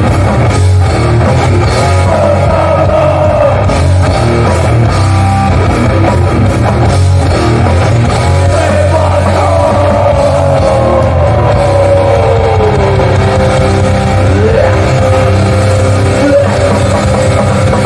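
Hardcore punk band playing live and loud: distorted electric guitars held over bass and drums, with a guitar note sliding down in pitch about two-thirds of the way through.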